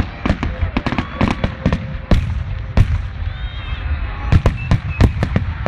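Aerial fireworks going off in a quick, irregular series of sharp bangs and crackling pops, often several a second, over a continuous deep rumble.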